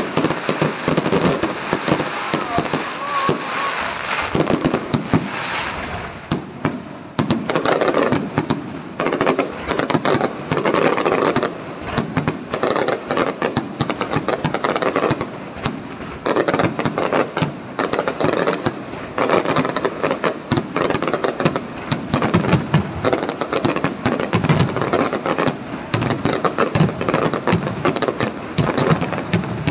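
Aerial fireworks display: a dense, unbroken barrage of shell bursts and crackling, many bangs a second, dipping briefly about six seconds in before carrying on.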